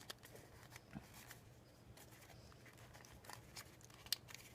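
Near silence with a few faint, scattered clicks and ticks from small plastic parts and a zip tie being handled.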